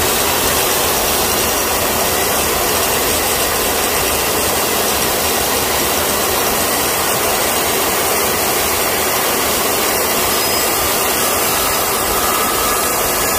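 Handheld circular saw running steadily at full speed as it cuts along a wooden 2x4.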